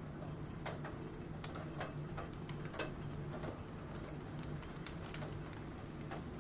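Computer keyboard typing: irregular, unhurried key clicks over a steady low background of rain.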